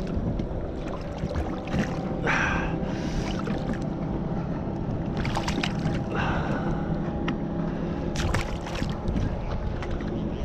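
Steady motor hum from a boat, with wind on the microphone. Two short rushing bursts come about two and six seconds in, and a few sharp clicks occur.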